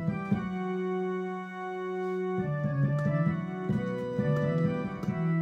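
Keyboard music with an organ sound: a chord held for about two and a half seconds, then a busier passage of changing notes.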